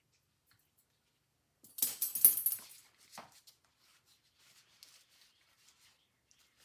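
Metal parts of a wind-up phonograph's spring barrel and mainspring clattering and clinking as they are handled. There is a short clatter about two seconds in, then a single click and faint small taps.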